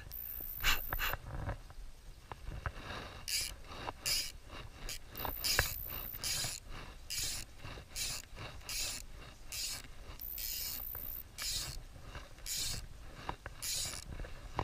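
Fly reel's click-and-pawl ratchet buzzing in short repeated bursts, about one every two-thirds of a second, as fly line is pulled off it by hand.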